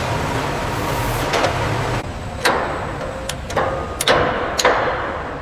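Steady low machinery rumble, then an abrupt cut to a series of sharp metallic clanks and knocks, several ringing briefly.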